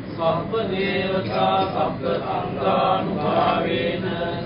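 Voices chanting a recitation, with held notes that step up and down in pitch.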